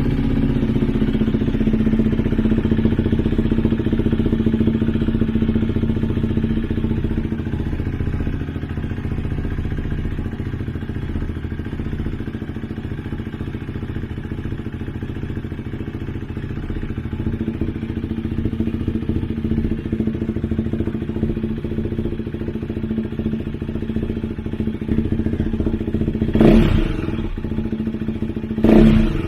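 KTM Duke 390's single-cylinder engine idling steadily through an aftermarket Akrapovic slip-on exhaust with the dB killer removed, just after starting. Near the end it gives two short, louder throttle blips.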